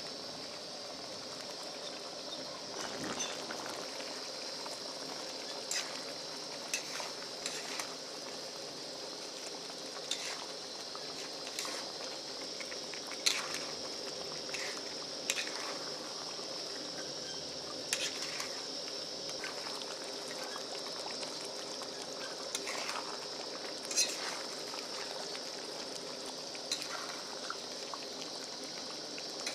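Goat meat frying down with spices in hot oil in a kadai, sizzling steadily, while a spatula scrapes and knocks against the pan every second or two as it is stirred.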